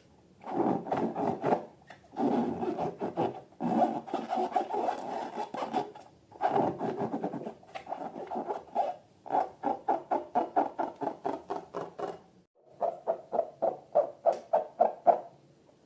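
Rapid rhythmic scraping strokes, about five or six a second, in runs of one to three seconds with short pauses between them.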